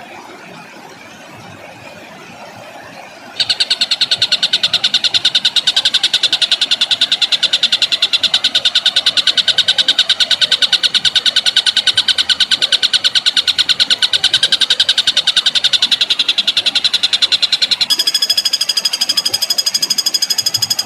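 A songbird giving a long, very rapid rattling trill of harsh repeated notes: the rolling 'tembakan' call valued in Indonesian bird-keeping. It starts loud about three seconds in, and near the end it switches to a higher, more ringing trill.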